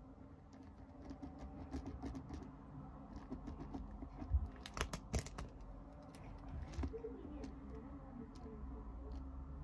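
Faint, irregular small clicks, taps and rustles of hands handling small objects, with a few louder clicks between about four and five seconds in.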